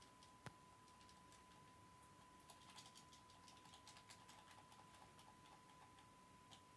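Near silence with a faint steady high tone, one sharp click about half a second in, and a scatter of faint light clicks a couple of seconds later.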